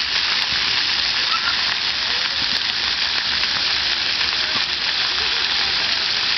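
Splash pad's ground water jets spraying and falling onto wet concrete: a steady hiss.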